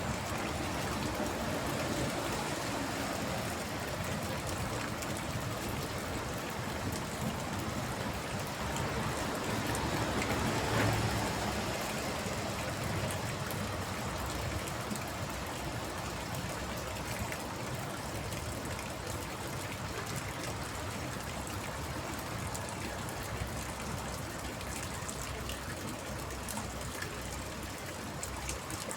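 Steady rain falling on a water tank, with water trickling. It swells briefly about ten seconds in.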